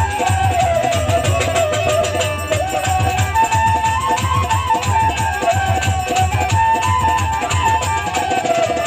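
Instrumental passage of Bangladeshi Baul folk music: a steady, regular drum beat under a melody line, with no singing.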